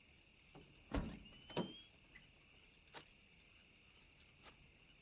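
A few scattered knocks and thumps, the loudest about a second and a second and a half in, one with a short rising squeak, over a faint steady high tone.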